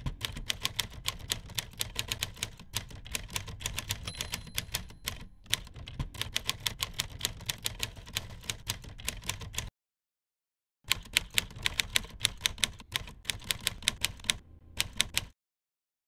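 Typewriter keys striking in rapid runs of keystrokes, several a second. A long run of typing breaks off for about a second, then resumes for a few more seconds and stops.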